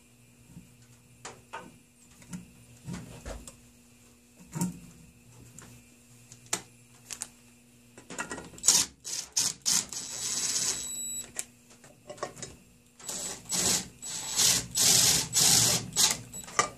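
Exhaust manifold bolts being fitted to the cylinder head and snugged down: scattered light metal clicks for the first half, then two stretches of rapid mechanical clatter from the tightening tool, beginning about eight and thirteen seconds in.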